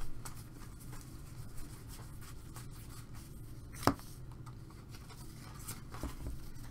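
Baseball trading cards sliding and rubbing against each other as hands flip through a stack, with one sharp click about four seconds in.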